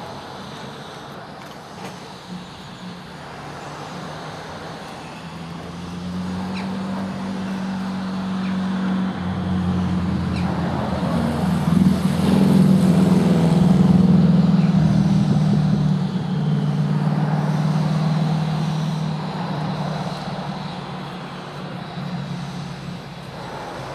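Narrow-gauge steam tank locomotive running slowly toward the listener, a steady low drone that swells to its loudest about halfway and fades again, with a burst of hiss around the loudest point.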